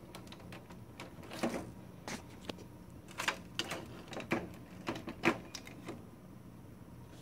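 Plastic clicks and snaps from the print-head holder of a Canon PIXMA G1000 ink-tank printer as it is handled and its locking cover is pushed shut and latched: a string of sharp clicks over about four seconds, stopping near the six-second mark.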